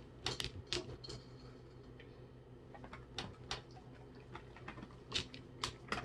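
Scattered light clicks and taps in small clusters of two to four, over a faint steady hum.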